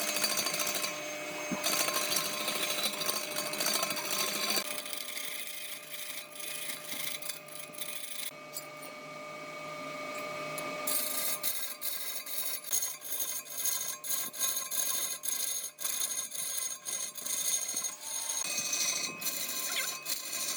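Power tools working wood, with scraping and sawing sounds and a steady machine whine. The sound changes abruptly several times, and the second half holds many sharp ticks.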